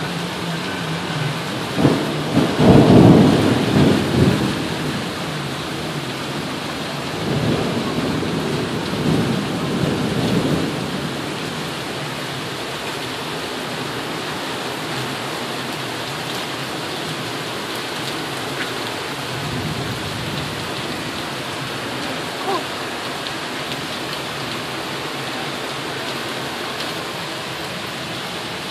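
Tropical storm wind and rain: a steady hiss, with two louder rumbling stretches, about two to four seconds in and again around eight to ten seconds in.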